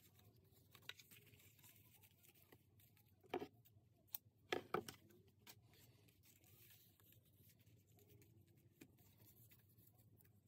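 Near silence with faint handling of paper and lace on a tabletop: a few brief rustles and taps, the loudest about three and a half and four and a half seconds in.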